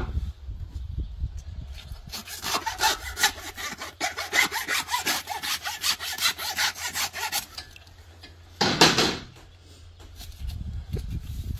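Butcher's hand saw cutting through the bone of a hanging beef carcass in quick back-and-forth strokes, about five a second, for several seconds. A single louder, longer burst of noise follows about nine seconds in.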